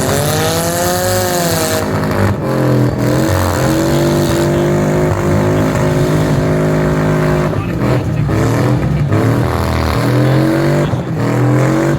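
Demolition derby cars' engines revving hard, the pitch climbing and falling again several times over a steady loud run.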